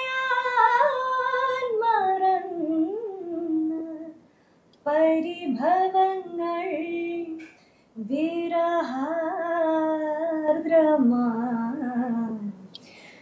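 A woman singing a Malayalam film song unaccompanied, in three long phrases with held, ornamented notes and short breaths between them.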